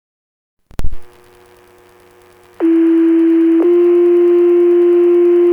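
Radio channel opening with a sharp burst of static about a second in, then two-tone sequential pager alert tones: a steady tone of about a second, then a slightly higher, longer tone. These are the tones that set off the firefighters' pagers, heard through a radio scanner.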